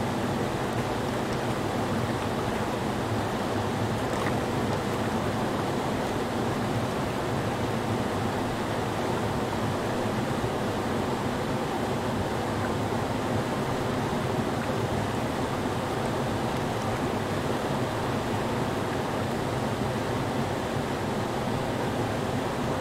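Creek rapids: whitewater pouring over a low rock ledge in a steady, even rush with a deep low rumble underneath.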